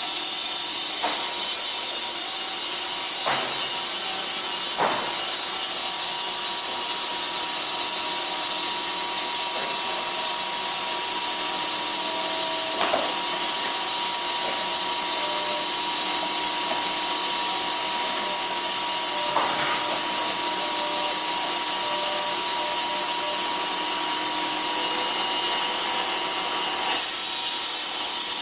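Band saw mill cutting through a log: a steady, high-pitched hiss from the blade in the wood, with a faint steady whine through most of it and a few short knocks.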